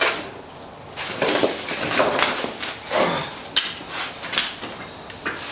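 Metal pit-bike parts being handled: a series of irregular clanks, clinks and knocks with some scraping.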